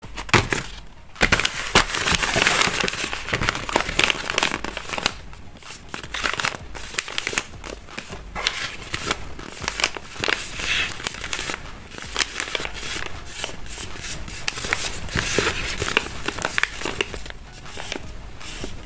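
Hand-made paper blind bags crinkling and rustling as they are handled, a dense run of irregular paper crackles.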